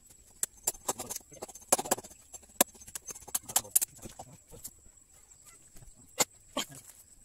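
Irregular sharp wooden knocks and cracks as a machete and the wooden poles of a hut frame are worked, thick in the first four seconds or so, with two more near the end. A faint steady high whine runs under them.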